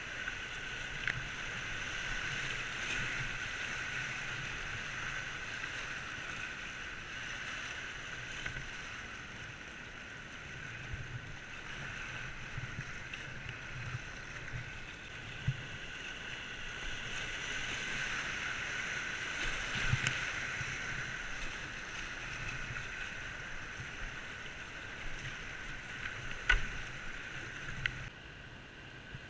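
Whitewater rushing steadily around a kayak running a rapid, with a few sharp splashes from paddle strokes hitting the water.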